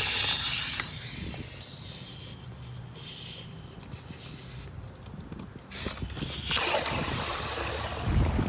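Compressed air from an air compressor forcing water out of in-ground pool plumbing lines: a loud spraying hiss of air and water lasting about a second at the start, then again for about two seconds near the end.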